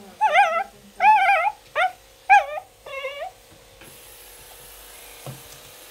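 Muzzled corgi puppy whining, five short, high, wavering cries in the first three seconds or so, in protest at being held for brushing.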